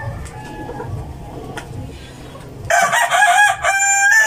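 A rooster crowing: one loud crow of about two seconds, starting nearly three seconds in, over faint background noise.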